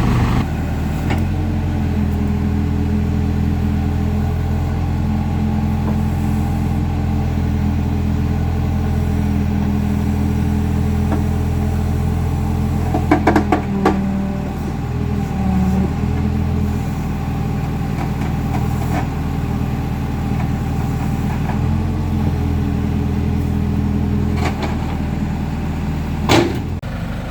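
Tractor engine running steadily while a backhoe scoops dirt. It dips and changes pitch briefly in the middle as the hydraulics take load, with a few short knocks from the bucket about halfway through and again near the end.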